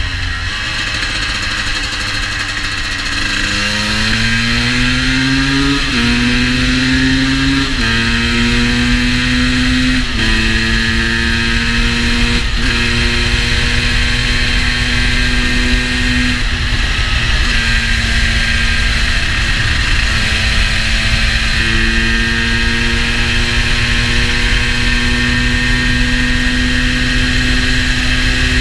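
GasGas EC 250 supermoto's single-cylinder two-stroke engine pulling through the gears. The revs climb and drop back at each upshift, about three in a row, then the bike holds a steady speed and builds again gently near the end. The bike was ridden on cold roads and runs a little rich, by the owner's account.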